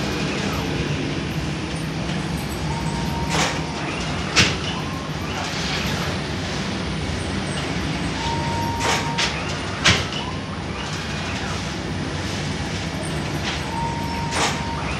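Automatic bread oven machinery running with a steady low hum, sharp metallic clanks every few seconds, and a short steady high tone about a second long that comes back roughly every five seconds.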